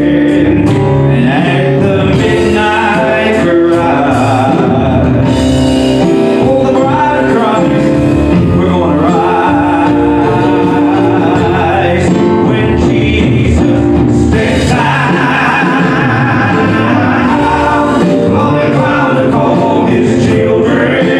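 Gospel group performing live: male voices singing over acoustic guitar, keyboard and drums.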